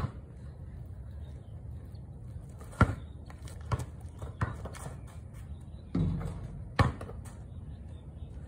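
Basketball bouncing on a concrete driveway: a handful of single thuds at uneven intervals, over a steady low rumble.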